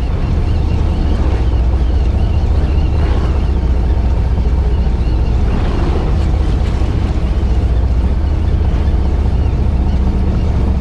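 Fishing boat's engine running with a steady low drone, with wind on the microphone.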